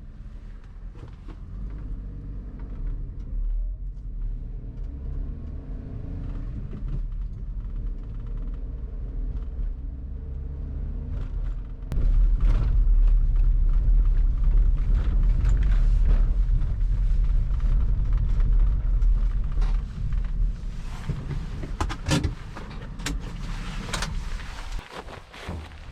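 A steady low rumble that gets much louder about twelve seconds in, with a few sharp knocks near the end.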